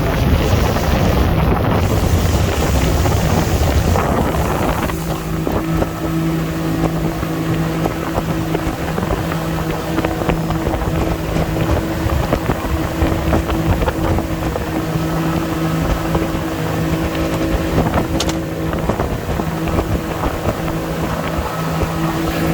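Motorboat engine running under way, with wind buffeting the microphone. About five seconds in, the wind rush eases and a steady engine hum comes through.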